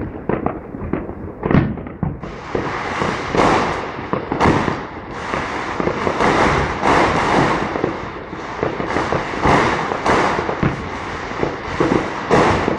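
Aerial firework shells bursting in a rapid, continuous barrage, bang after bang with no pause between them.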